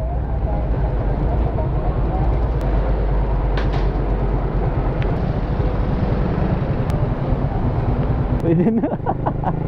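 Motorcycle engine idling steadily; near the end the bike moves off and a voice talks over it.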